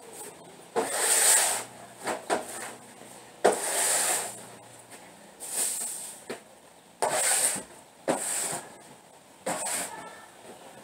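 A series of about seven rough rubbing or scraping strokes, each under a second long, coming every second or so at irregular intervals.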